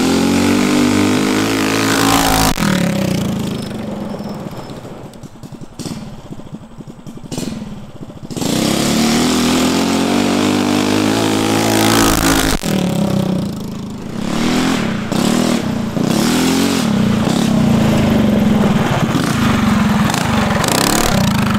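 Tillotson 212 single-cylinder four-stroke engine of a Coleman CT200U-EX mini bike, fitted with a racing muffler, running hard at wide-open throttle. Its pitch rises and falls, it goes quieter for a few seconds in the middle, and it comes back loud and steady near the end.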